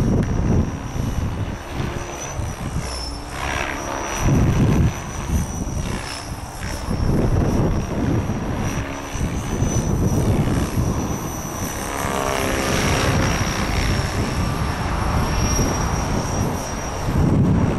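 Align T-Rex 600 radio-controlled helicopter flying high overhead, giving a steady high whine that wavers slightly in pitch as it manoeuvres. Gusts of wind buffet the microphone, loudest about four seconds in and near the end.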